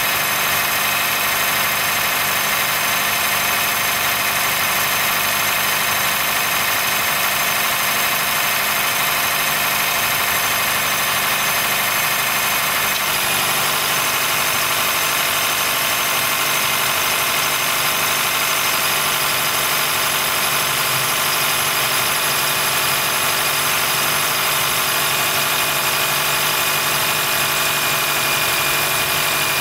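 Honda Fit Hybrid (GP5) running with a steady high-pitched squeak and whine, the 'kiri-kiri, kii-kii' noise it makes only when cold, below about 10 °C. The noise fades once the car has warmed up, and the dealer judged it harmless. The pitch pattern shifts about halfway through.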